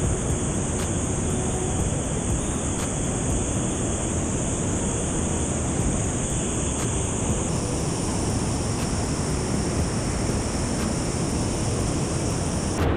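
Steady rush of a waterfall and its fast-flowing water, with wind buffeting the microphone.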